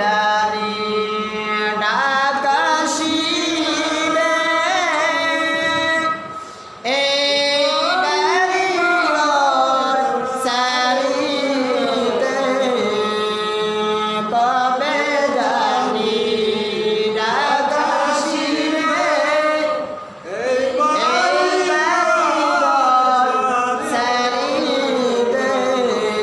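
A man chanting in long, drawn-out melodic phrases, his voice gliding up and down in pitch, breaking off briefly twice, about six and a half and twenty seconds in.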